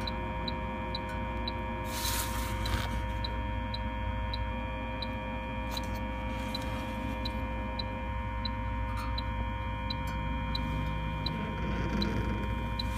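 H-10 Pro heated-sensor electronic refrigerant leak detector ticking at a slow, even rate of about two short high clicks a second, its probe picking up no refrigerant at this moment. A steady hum runs underneath, with a brief rustle about two seconds in.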